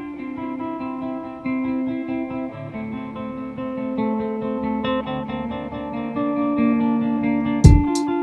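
Acoustic guitar music, a picked melody of sustained notes over a low line. Just before the end, two sharp percussive knocks come in.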